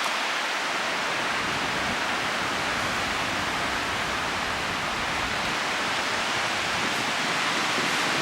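Storm-force wind rushing through tall trees, a steady roar with no lulls, with low rumbling wind buffet on the microphone.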